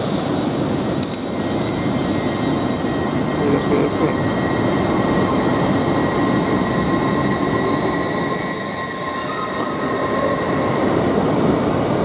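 Hull Trains Class 802 bi-mode express train pulling out and passing close by, its running rumble topped by a steady high whine.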